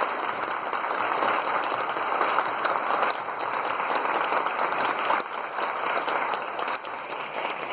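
A crowd applauding steadily: many people clapping at once in a sustained round of applause.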